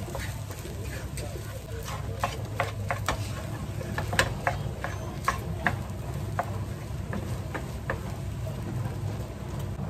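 Wooden spatula stirring fried rice in a nonstick frying pan: irregular scrapes and sharp clicks of the spatula against the pan, busiest in the middle, over a faint sizzle. A steady low hum runs underneath.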